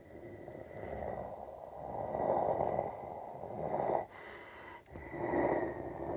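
Airbus A320 jet engines at takeoff power, heard at a distance as a rumbling roar that swells and fades in waves, with a steady high whine running through it.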